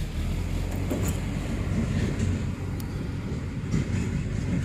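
A motor running with a steady low drone, with a few light clicks over it.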